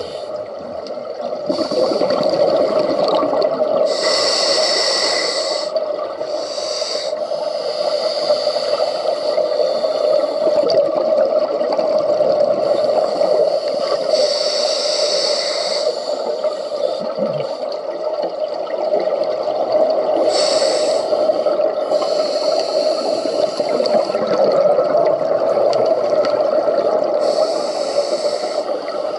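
Scuba regulator breathing heard underwater: hissing bursts from the breaths recur every few seconds, over a steady underwater hum.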